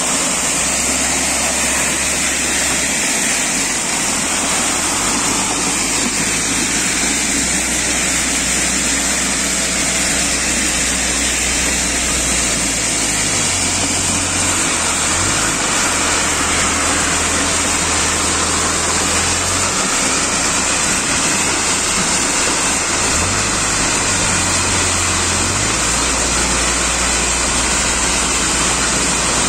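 Mobile trommel screen running: a steady rushing rattle of dark granular material tumbling in the rotating drum and pouring off the conveyor belts, over a low machine drone that shifts up and down in pitch a few times.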